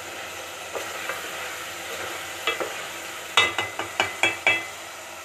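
Chicken karahi gravy sizzling in a metal pot as a spoon stirs it, then about six quick, ringing taps of the spoon against the pot near the end.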